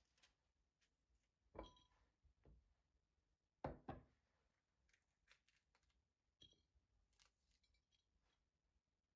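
Near silence in a small room, broken by a few faint, sharp knocks and clicks of objects being handled, the loudest a double knock about four seconds in.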